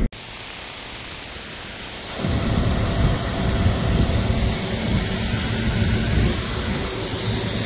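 Wheat grain pouring into a bin, a steady hiss, joined about two seconds in by the low rumble of harvest machinery running.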